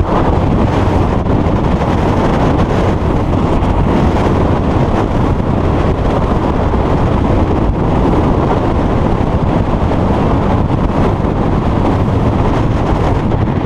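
Loud, steady wind noise on the microphone with the rush of water from a 400-horsepower 22-foot Liberator powerboat running at speed, its engine running underneath.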